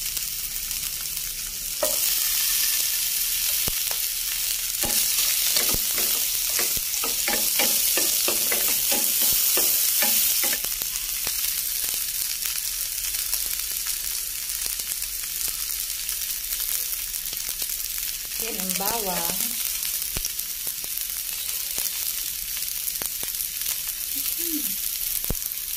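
Sliced ginger frying in hot oil in a nonstick pan: a steady sizzle, louder from about two seconds in until about ten seconds in. A run of light clicks comes between about five and ten seconds in.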